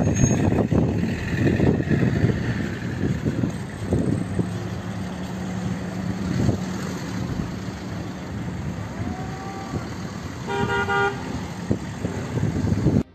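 Strong wind buffeting the microphone over street traffic noise, with one short car horn honk late on.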